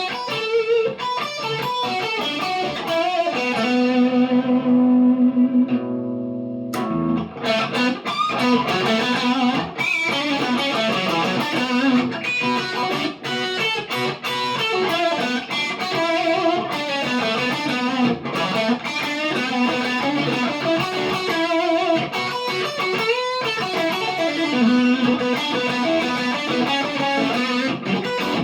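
PRS McCarty 594 Hollowbody II electric guitar played through an amp, picked notes and chord phrases. A chord is held a few seconds in and then cut off sharply before the playing picks up again.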